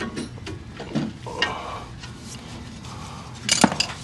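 Hand ratchet working the large 19 mm caliper bracket bolts loose on a pickup's front brake, giving irregular metallic clicks, with a sharper cluster of metal clinks near the end.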